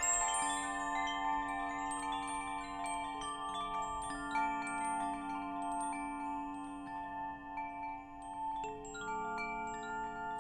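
Wind chimes ringing: notes struck at irregular moments, each ringing on for seconds and overlapping the others, from low to high pitches.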